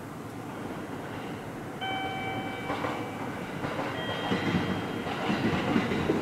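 DD51 diesel-hydraulic locomotive's twin diesel engines rumbling as it approaches, growing louder. About two seconds in a horn holds a note for about a second, and a second, higher note sounds about four seconds in.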